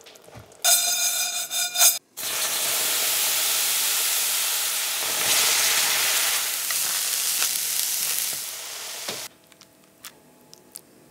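Arborio rice sizzling and steaming in a hot frying pan: a loud, steady hiss lasting about seven seconds that cuts off suddenly. Just before it comes about a second of a brief pitched ringing tone.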